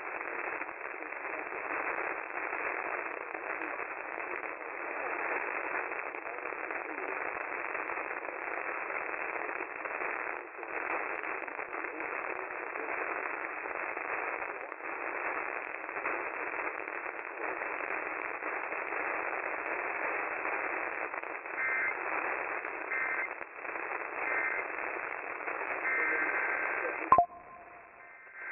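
AM radio static: a steady, narrow-band hiss from a receiver with no programme audio. Near the end a few faint short two-tone beeps come through, then a sharp click, after which the static drops away.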